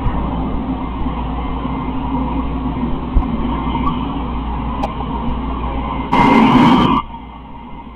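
Wyze robot vacuum running, a steady motor whine over a noisy hum. About six seconds in, a louder, hissier surge lasts just under a second and cuts off suddenly, leaving a quieter hum.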